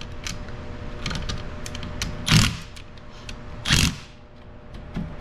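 Cordless impact driver hammering in short bursts of rattling blows, with lighter clicking between, two louder bursts about two and a half and four seconds in. It is snugging down camshaft cap bolts on a Valvetronic cylinder head lightly, not to torque.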